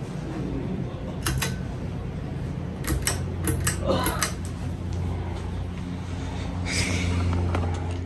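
Hunter Osbourne ceiling fan running with a steady low hum of motor and air. Its pull-chain switch is worked, giving a few sharp clicks about a second in and a quicker cluster around three seconds in, after which the hum is stronger.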